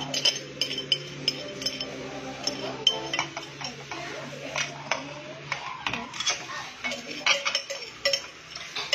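Metal spoon stirring sugar into mangosteen cider in a stainless steel container, clinking against the sides a few times a second in an uneven rhythm, as the sugar is worked in to dissolve. A steady low hum runs underneath and stops about halfway through.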